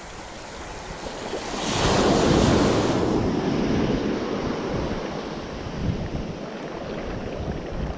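Ocean surf washing in: a wave rushes up, loudest about two seconds in, then slowly drains away, with wind buffeting the microphone.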